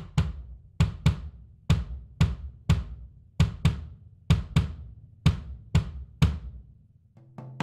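Shallow pancake drum kit (zebrawood over mahogany shells, 3-inch-deep drums, Evans heads) played in a slow, steady beat: sharp drum strokes, each with a deep thud, coming in pairs a little under once a second. About seven seconds in, ringing pitched drum hits start.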